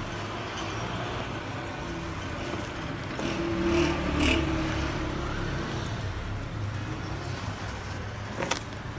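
Woven plastic sack rustling as it is laced shut with string, over a steady low rumble. The rumble swells about three to four seconds in, and there is one sharp click near the end.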